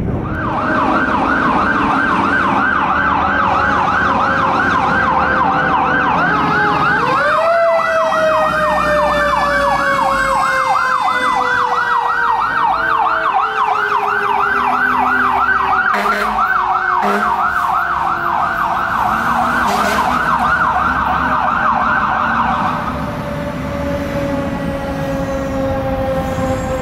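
Fire truck sirens on a responding ladder truck: a fast-cycling electronic yelp, about four sweeps a second, that cuts off a few seconds before the end. Under it a lower wailing siren climbs sharply about seven seconds in, then winds slowly down in pitch.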